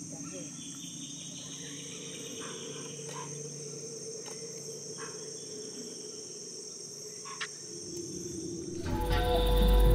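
Steady high-pitched insect chorus, like crickets, with a few faint short calls over it. It cuts off about nine seconds in, when music with sustained tones begins.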